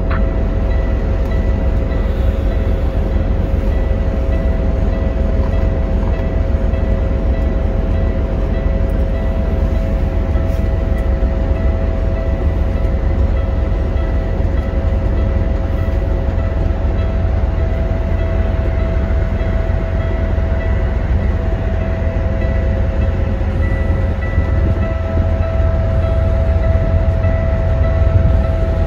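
Diesel engine of a 2012 Kenworth W900L semi truck running steadily, heard from inside the cab as a deep, even rumble with a steady whine over it.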